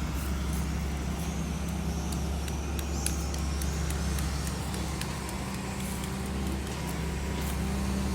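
A heavy vehicle's engine running steadily at an even, low pitch, with a few faint ticks over it.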